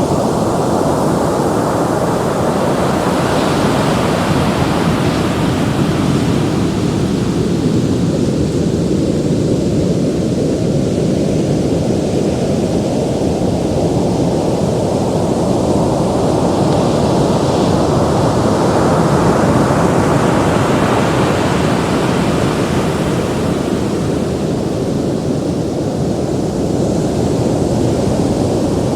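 Ocean surf: a continuous rush of waves, with the hiss of breaking water swelling up twice, a few seconds in and again about two-thirds through.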